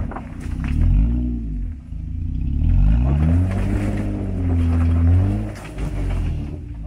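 Jeep Gladiator's V6 engine revving up and down in repeated swells under load as the truck crawls up a rock ledge. A longer, higher rev is held a few seconds in.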